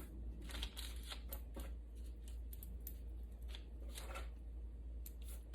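Soft, irregular rustling and light scraping of hands spreading shredded mozzarella over parchment paper on a baking pan.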